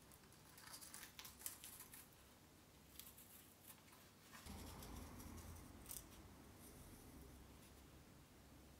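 Faint scratchy clicks and rubbing as two halves of a cuttlefish bone are fitted together by hand over brass screw locating pins and pressed shut, with the clicks bunched in the first couple of seconds and a few more later.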